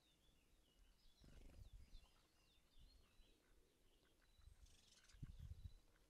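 Faint twittering of small songbirds, with two short low rumbles, about a second in and near the end.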